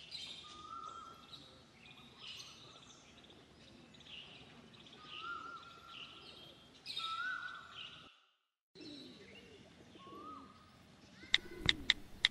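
Birds chirping, with one bird repeating a short rising whistle every couple of seconds. The sound drops out briefly a little after 8 s. A few sharp clicks come near the end.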